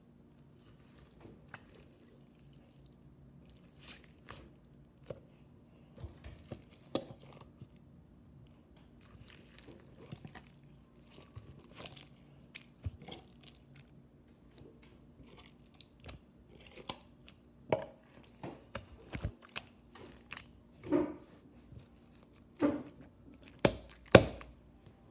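Bead-filled crunchy slime being squeezed and worked in its plastic jar: scattered crackles and pops that grow louder and more frequent, with the loudest squelching crackles in the last few seconds as the slime comes out onto the counter.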